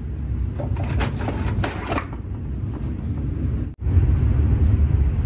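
Light clicks and rattles of a plastic O-ring assortment case and toolbox drawer being handled, over a steady low rumble. The rumble cuts out sharply just before four seconds in and returns louder.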